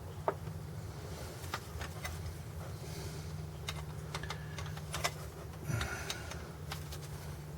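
Scattered small metallic clicks and taps as the pin for a Jeep Wrangler clutch slave cylinder is worked into place by hand, over a steady low hum.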